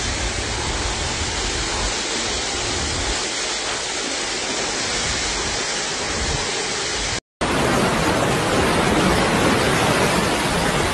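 Steady dense rush of water in a heavy storm, from torrential rain and flooding. About seven seconds in it breaks off for a moment and returns louder and hissier.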